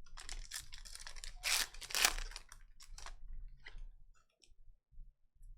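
Trading cards being handled: a quick run of crisp rustles, slides and clicks as cards are flicked and moved against each other, thinning out after about four seconds.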